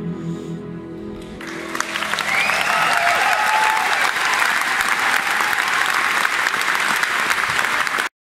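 A symphony orchestra's final sustained chord fading out, then about a second and a half in the audience breaks into loud, steady applause, which cuts off abruptly near the end.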